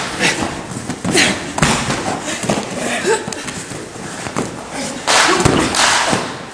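Scuffling and thumps of bodies on gym mats during floor grappling, with indistinct voices.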